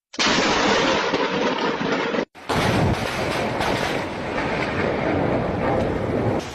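Thunderstorm: a steady downpour with low rumbling thunder, in two clips spliced together with a short break a little over two seconds in.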